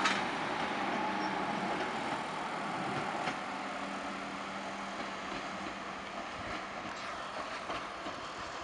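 Light-rail tram running along its tracks and pulling away, its rolling noise slowly fading, with a steady motor hum and a couple of sharp clicks from the wheels on the rails.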